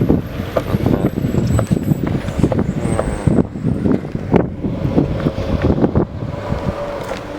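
Self-balancing scooter rolling over pavement: a steady rumble from the small hard wheels with many sharp knocks and rattles over bumps, and wind buffeting the microphone.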